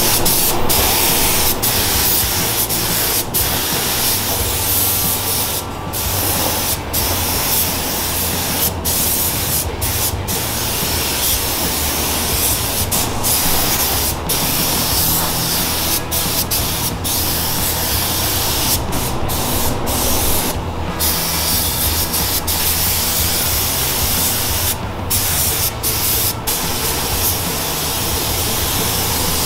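Gravity-feed Fuji spray gun spraying black paint: a steady hiss of atomising air, cut off briefly many times as the trigger is released between passes.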